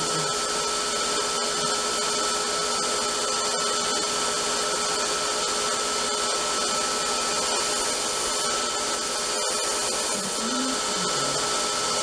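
Bader B-III belt grinder running steadily as it sands a bolted stack of thin stainless steel plates: a constant hiss with a steady pitched whine.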